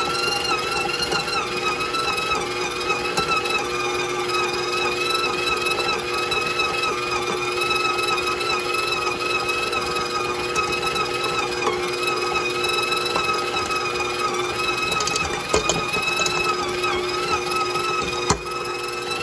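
Stand mixer running fast with a dough hook, a steady loud whine, while a small batch of potsticker dough has not yet caught on the hook. There are a few knocks and a sharp click near the end.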